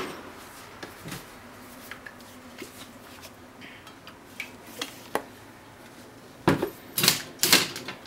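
Kitchenware handled at a nonstick frying pan as cooking oil is poured in from a plastic bottle: scattered light clicks and taps, then a quick run of four or five louder clattering knocks near the end.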